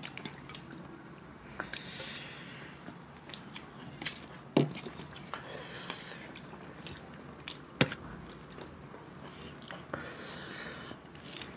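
Fingers mixing rice and chicken curry on steel plates, with soft squishing and quiet chewing, and two sharp clicks about four and a half and eight seconds in.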